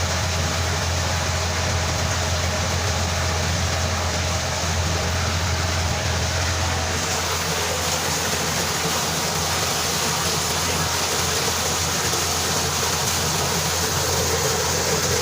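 Electric motor of a twin-tub washing machine, rated 1400 rpm, running steadily off the timer with a strong low hum. About seven seconds in, the hum eases slightly and a higher hiss grows.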